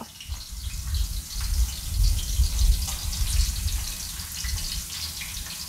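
Tap water gushing into a stainless steel pot of rice to soak and rinse it. In the second half the rush eases, and oil is heard sizzling and crackling around salmon pieces frying in a stainless skillet.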